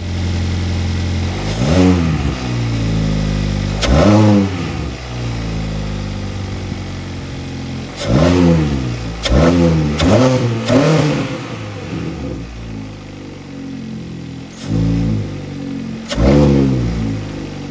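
Kia Optima's four-cylinder engine, with its muffler and resonator deleted, idling and revved in about eight short blips, each rising sharply in pitch and falling back.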